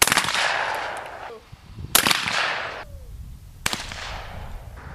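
Three shots from an SKB Model 1300 20-gauge semi-automatic shotgun: one at the start, one about two seconds in, and one near four seconds in. Each trails off in a long echo.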